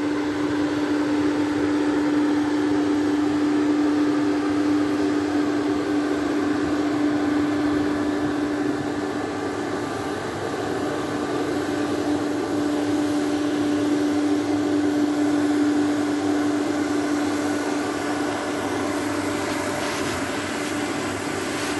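Fan-type snowmaking machine (snow cannon) blowing artificial snow: a steady, loud hum with one constant tone over a rushing hiss of air and spray.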